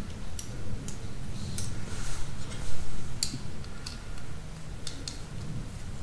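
A few scattered sharp metallic clicks as the small metal strain-relief clamp for a range power cord is handled and turned in the fingers, over a low steady hum.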